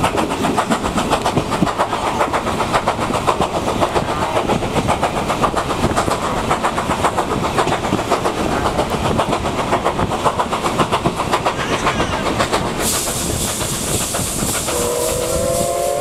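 Steam-hauled passenger train heard from inside a coach, running with a fast, even rhythmic beat. Near the end a loud hiss of steam starts, and then the steam locomotive's whistle sounds in a long blast of several notes at once.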